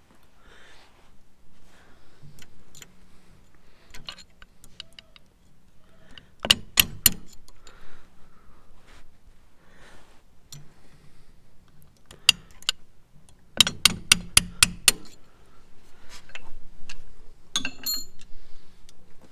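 Sharp metal-on-metal clicks and taps from a steel split pin being worked into the lift rod pin of a tractor's pickup hitch and its legs bent over. The clicks come singly, with two quick runs of about four taps a third of the way in and about eight taps a little past two-thirds in, and a ringing clink near the end.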